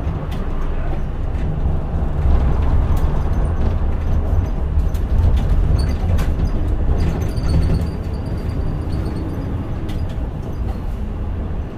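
Interior running sound of a Mitsubishi Fuso Aerostar (PJ-MP35JM) diesel city bus on the move: a steady low engine and road rumble that grows louder about two seconds in and eases off near the eighth second, with light clicks and rattles.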